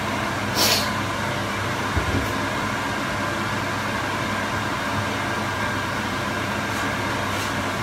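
Steady fan-like hum with a hiss, running evenly throughout, with one short, sharp sound, such as a utensil knocking the pan, about a second in.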